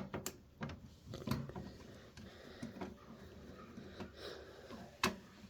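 Small metal clicks and scrapes of a screwdriver turning the captive screws of a desktop PC's CPU cooler, with a sharp click about five seconds in.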